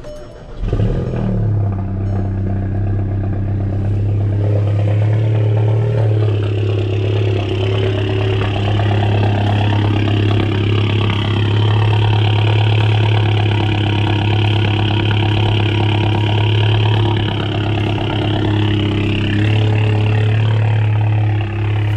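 MK7 Volkswagen GTI's turbocharged 2.0-litre four-cylinder cold-starting through a Borla exhaust. It catches about half a second in, flares up and drops back, then holds a loud, steady cold idle. The owner finds the exhaust note deafening and harsh.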